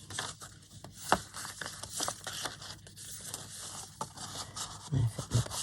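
Paper and card rustling and rubbing as printed pages and folded envelopes are handled, with a few light taps and clicks, the sharpest about a second in.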